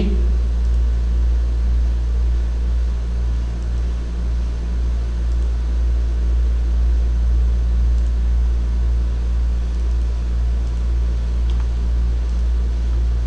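A steady low hum with an even hiss over it, the constant background noise of the recording. There is a faint click about eleven and a half seconds in.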